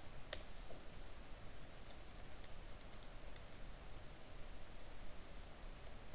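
Computer keyboard keys tapped in scattered, light clicks over a steady hiss.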